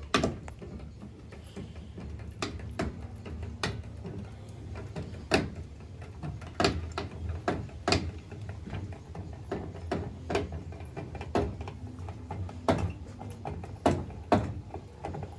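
Roll-out van awning being wound open with a hand crank: irregular sharp clicks and knocks from the crank gearbox and unfolding awning arms, roughly one a second.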